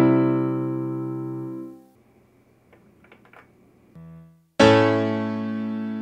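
Piano patches of a Roland GR-20 guitar synthesizer played from a MIDI guitar. A piano chord with a low bass note rings and fades out over about two seconds. After a pause with a few faint clicks and a short low note, a new full piano chord is struck about four and a half seconds in and left to ring.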